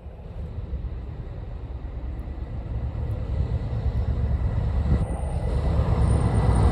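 Approaching train: a low rumble that grows steadily louder.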